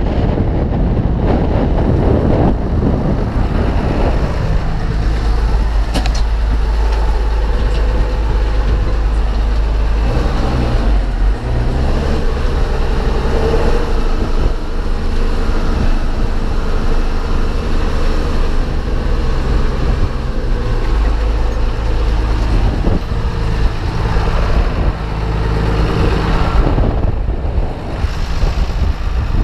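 MTZ-2022.3 tractor's diesel engine running steadily while towing a trailed cultivator. The engine note shifts about ten seconds in.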